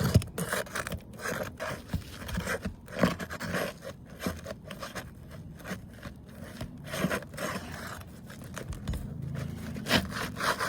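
Asphalt roof shingle being worked loose and slid out from under the overlapping course: a run of irregular scrapes and short clicks.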